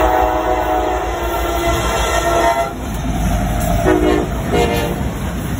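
A diesel locomotive's multi-chime air horn sounds a long blast for the grade crossing, which stops a little under three seconds in. Two short blasts follow, lower in pitch, as the locomotives pass at the crossing. The rumble of the lead locomotives' engines and wheels runs underneath.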